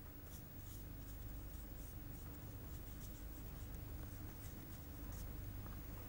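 Faint, soft scratching of an ink brush on painting paper, in short strokes, over a steady low hum.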